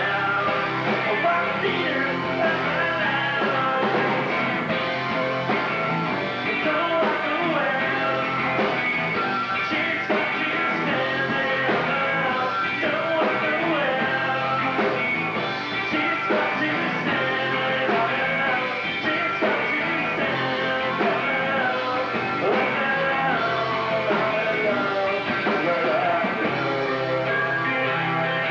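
Live rock band playing: electric guitar, electric bass and drum kit performing a rock song together, steady and loud throughout.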